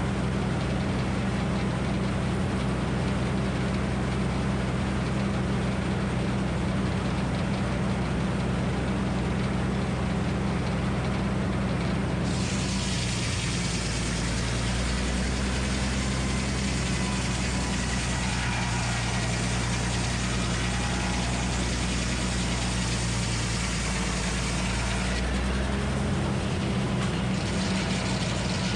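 The Minneapolis Moline HEB 605-cubic-inch engine driving a Frick circular sawmill runs steadily. About twelve seconds in, the saw blade goes into the oak log with a high rushing cutting noise. Soon after, the engine's pitch drops as it lugs under the load of the cut, and it picks back up when the noise stops a few seconds before the end.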